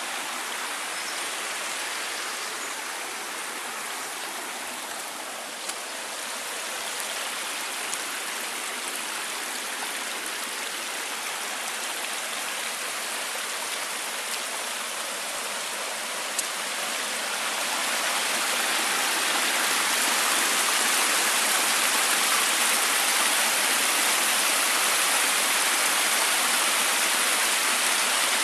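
A stream running with a steady rush of water that grows louder about two-thirds of the way through.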